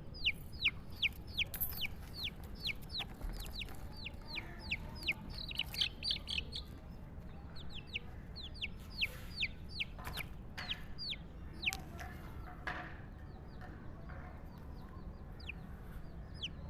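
Bird calls: many short, high peeps, each falling in pitch, several a second, growing sparser after about twelve seconds, with a couple of soft knocks in between.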